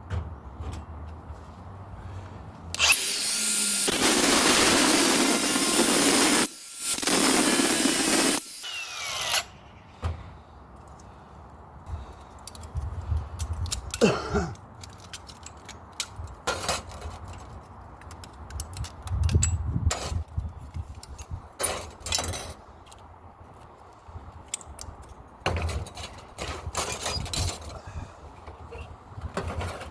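Cordless power tool cutting into the metal of a microwave magnetron in two steady runs, one of about three and a half seconds and one of about a second and a half. Afterwards come scattered knocks and clatter of metal parts being handled.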